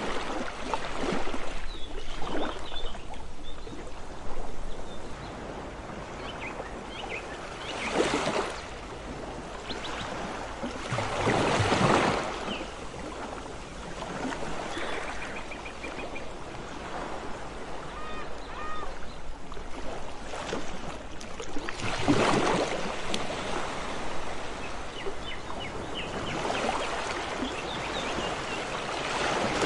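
Surf washing onto a beach: a steady rush of water with waves surging louder every several seconds. Faint short high chirps sound now and then over it.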